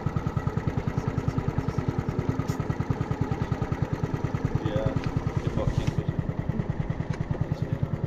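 Small engine running steadily with an even low chugging, about ten beats a second.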